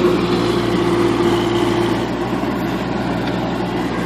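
Backhoe engine running steadily, with an even drone that holds throughout.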